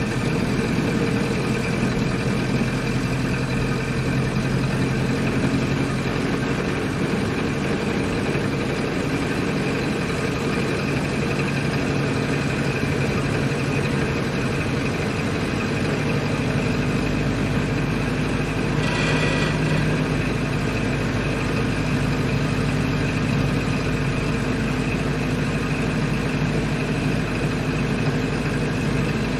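1928 Ford Model A's four-cylinder engine running steadily while driving. Its low note shifts a little over halfway through, and there is a brief higher-pitched sound soon after.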